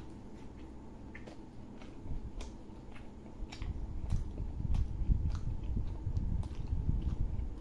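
Close-up chewing of a mouthful of paratha with aloo dum potato curry, with scattered soft clicks. It grows much louder about halfway through.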